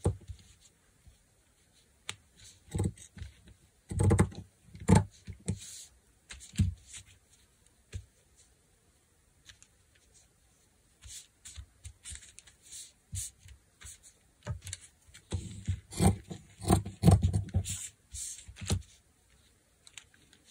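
Handling noise on a craft table: fabric scraps and small embellishment pieces being picked up, shuffled and set down, giving soft rustles with light taps and clicks. There are two busy spells with a quieter stretch between them.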